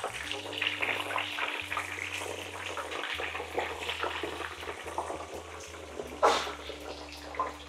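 Quartered brinjal pieces deep-frying in hot oil, a steady crackling sizzle with a louder flare of hiss about six seconds in, over a steady low hum.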